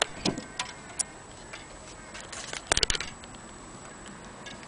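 Antique Vienna wall clock ticking, with sharp clicks and a quick metallic rattle about two and a half seconds in as the wooden case and brass weight shells are handled.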